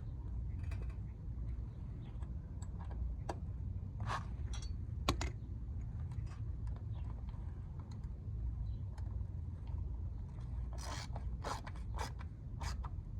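Small socket ratchet tightening bolts by hand: scattered clicks and scrapes, then a quicker run of sharp clicks near the end, over a low steady hum.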